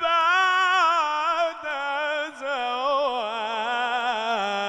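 A man's solo voice singing an Egyptian ibtihal, an unaccompanied Islamic devotional chant in praise of the Prophet. He draws out the words "al-amna baʿda" in a long, heavily ornamented line that slowly falls in pitch, with a short breath a little past two seconds in.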